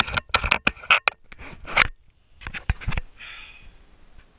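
Handling noise from an action camera being gripped and repositioned by hand: fingers rubbing and knocking on it, a quick, irregular run of loud clicks and scrapes, then a short soft hiss about three seconds in.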